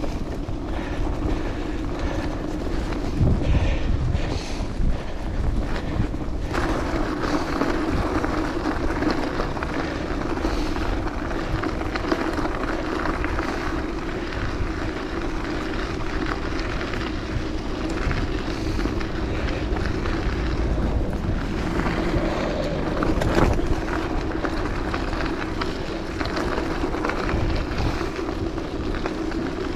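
Bicycle rolling steadily on a gravel road: continuous tyre noise with a steady hum, and wind rumbling on the microphone.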